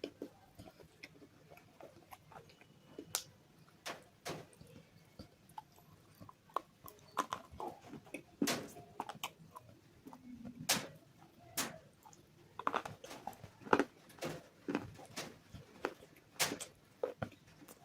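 Close-miked biting and crunching of hard, brittle bars coated in white chalk paste: irregular sharp snaps and crunches, with chewing crackle between them.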